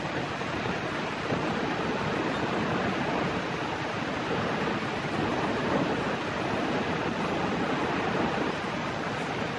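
Steady rushing and splashing of water as a sunken pickup truck is hoisted out of the water by a tow truck's crane.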